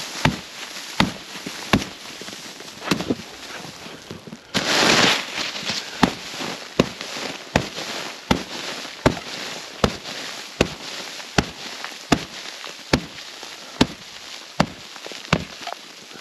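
Sharp cracks about every three-quarters of a second, with one longer scraping rush about five seconds in: a snow brush beating and sweeping crusted freezing-rain ice off the fabric roof of an Eskimo pop-up ice-fishing shelter.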